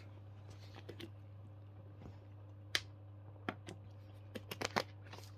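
Scattered clicks of keys being pressed on a computer keyboard, a few at first and then a quick run of them near the end, over a steady low hum.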